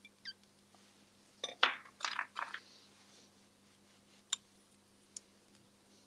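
Quiet handling sounds of hands and a palette knife working soft air-dry clay: a few soft scuffs about two seconds in, then a sharp click a little after four seconds and a fainter one about a second later.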